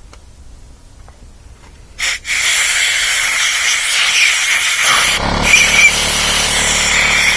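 Compressed-air blow gun blasting air, starting about two seconds in as a loud, steady hiss, blowing dirt out of a disassembled chainsaw. About five seconds in, a deeper rush joins the hiss.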